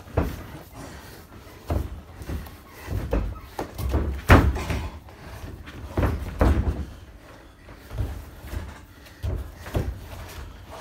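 Two wrestlers scrambling on a wrestling-ring mat: irregular thuds and slaps of bodies, hands and feet on the mat, the loudest about four seconds in.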